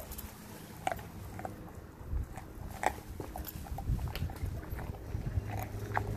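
A Renascence Bulldogge gnawing a raw whitetail deer leg, with irregular crunches and sharp clicks as it chews through hide and bone.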